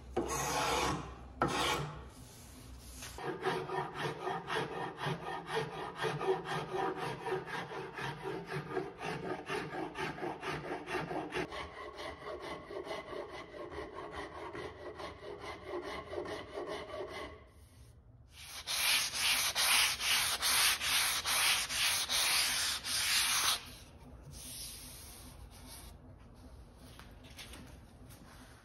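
Hand-shaping an ash tiller: quick back-and-forth strokes of a hand tool rubbing on the wood. The strokes pause briefly about 17 seconds in, then come louder and brighter for a few seconds before easing off near the end.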